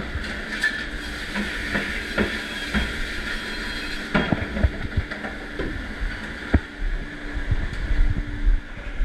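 Steady rushing hiss and hum of a commercial dishwashing machine, with dishes and racks clattering and knocking, more often from about four seconds in.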